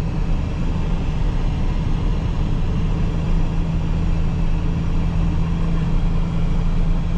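Truck driving very slowly on an icy, snow-packed road with chains on its rear tires: a steady low rumble of engine and tires with no change in pace.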